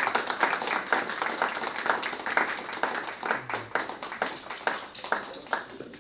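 Audience applauding by hand, the clapping thinning out and fading away toward the end.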